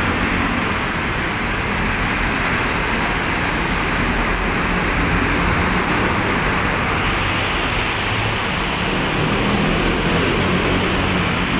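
Steady roar of busy road traffic under an elevated highway, with a Sinotruk HOWO dump truck's diesel engine and motorcycles passing close by.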